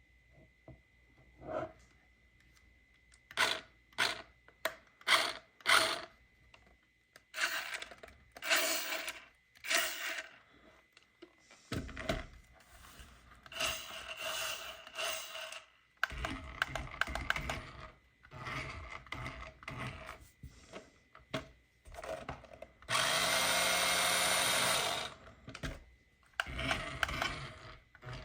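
Radio-control toy car handled, with its small electric drive motor and plastic gears whirring in short irregular spurts and one steadier run of about two seconds near the end.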